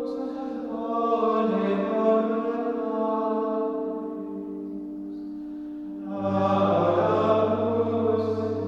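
Background music: choir-like chanting voices over a steady held drone, with a deep bass note entering about six seconds in.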